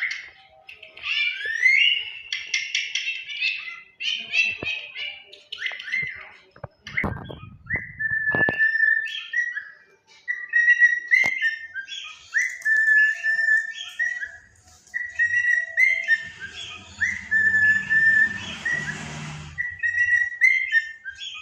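Pet parrot chirping, then whistling one short note over and over, each rising quickly into a steady tone, about once a second. A few knocks come about seven seconds in, and a rustle late on.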